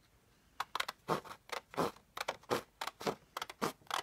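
Scissors cutting paper in a run of quick snips, about three to four a second, starting about half a second in.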